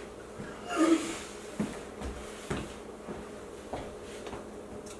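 A brief muffled vocal sound about a second in, then a handful of light, scattered knocks and clicks from things being handled on a kitchen counter.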